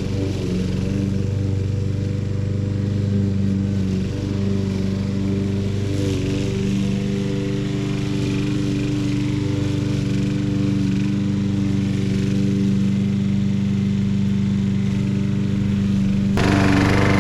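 Gasoline walk-behind lawn mower engine running steadily while mowing grass. It gets suddenly louder near the end.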